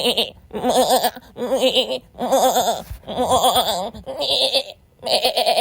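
A goat bleating over and over, about six or seven quavering bleats in quick succession with short breaks between them.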